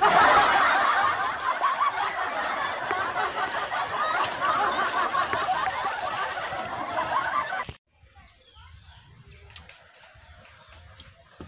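Canned laughter sound effect: many people laughing at once, starting abruptly and cutting off suddenly about eight seconds in, followed by faint background sound.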